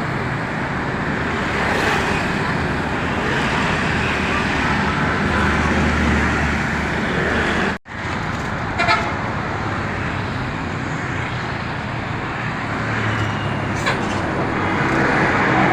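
Busy city-street traffic: tour bus and car engines running past, with horn toots. A heavier engine rumble swells about six seconds in, and the sound drops out for an instant just after.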